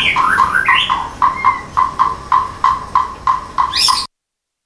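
A bird calling: a quick run of short repeated notes, about three a second, that cuts off suddenly about four seconds in.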